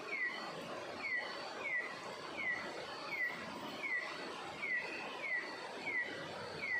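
An animal call repeating, about ten short falling chirps at roughly one and a half a second, over a faint steady high-pitched tone.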